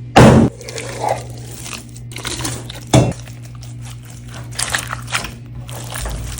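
Water slime being handled and squished by hand: scattered crinkly, crackling squishes, with two loud knocks, one just after the start and one about three seconds in.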